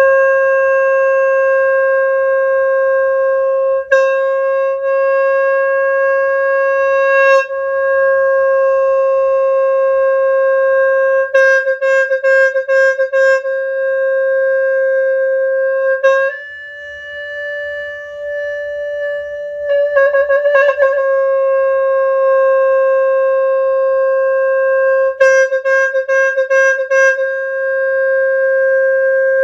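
A Khmer horn, a reed wind instrument, holding one long unbroken note. The pitch steps up slightly about halfway through and drops back a few seconds later, with bursts of quick trills at several points.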